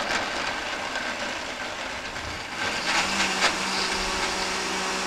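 Countertop blender running steadily, chopping a thick mixture of tofu, roasted red pepper, potato and a little water into a creamy sauce.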